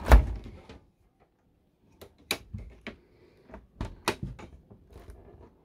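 A series of clicks and knocks from a motorhome fridge door being pulled at its handle, the loudest knock right at the start and more in two clusters after. The door is stuck shut and does not open.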